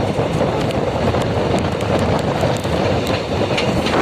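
MEMU train running on the track: a steady rumble of wheels on rail with scattered sharp clicks and knocks.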